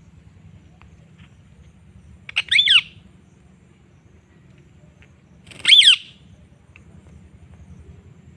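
A parrot giving two loud calls about three seconds apart, each short and falling in pitch.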